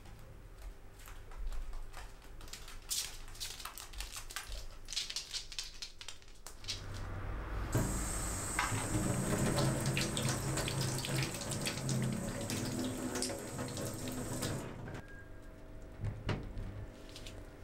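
A kitchen tap running a thin stream into a stainless steel sink. The water comes on about seven seconds in and is shut off abruptly near fifteen seconds. Before it there are scattered light clicks and taps, and near the end there is one click as a glass bowl is set down on the steel draining board.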